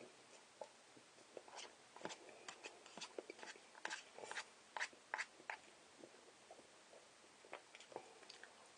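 Faint, irregular wet clicks and smacks of someone chewing instant noodles, coming thickest in the middle few seconds.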